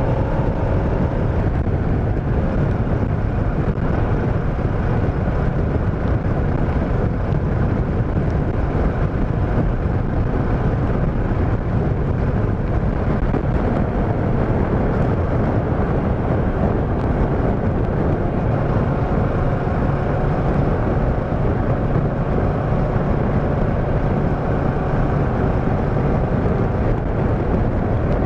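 Motorcycle being ridden at a steady speed: a constant engine hum mixed with wind rushing over the microphone.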